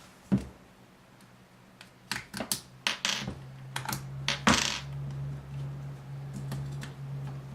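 Push pins being pushed out of a Tippmann X7 Phenom paintball marker's frame: scattered sharp clicks, taps and short scrapes of small metal parts on plastic. A low steady hum comes in about three seconds in.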